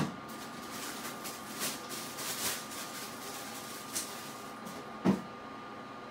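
Two sharp knocks, one right at the start and one about five seconds in, with a few softer brushing noises between them, over a steady faint hum.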